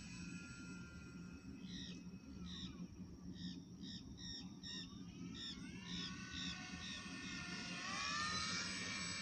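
Radio-controlled model airplane engine whining in flight at a distance, its pitch gliding up and down as it manoeuvres, while a bird repeats short high calls about twice a second.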